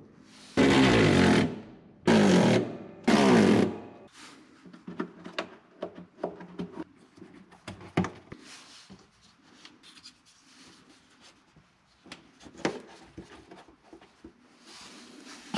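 Small cordless ratchet running in three short bursts of about a second each, spinning nuts onto the seat-track studs under the car's floor pan. After that come scattered faint clicks and handling noises.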